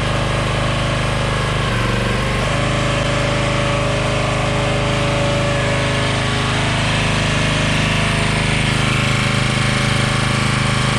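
Troy-Bilt log splitter's original small gasoline engine running steadily, driving its original hydraulic pump. The engine note shifts briefly about two seconds in, then holds steady.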